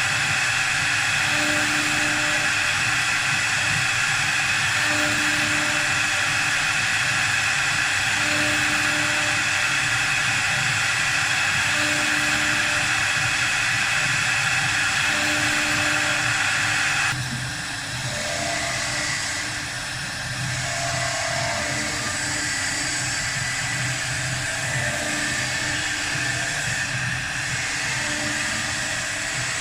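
4-axis CNC wood lathe running, its cutter working a spinning wooden workpiece: a steady whine and hiss, with a lower tone pulsing about every second and a half. About seventeen seconds in, the high whine cuts off and the machine runs on a little quieter.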